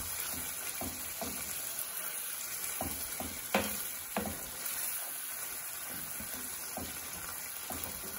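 Ground beef in tomato sauce sizzling steadily in a skillet while a wooden spoon stirs and scrapes through it, with two louder knocks a little past the middle.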